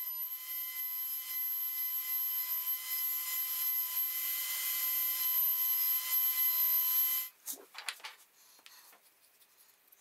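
Table-mounted router spinning a small round-over bit while a plywood knob is fed against it: a steady high whine with a cutting hiss. It stops abruptly about seven seconds in, followed by a few faint clicks.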